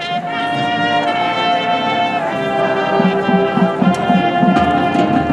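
High school marching band playing: the brass section holds a loud sustained chord. About three seconds in, low brass adds a run of short repeated notes underneath.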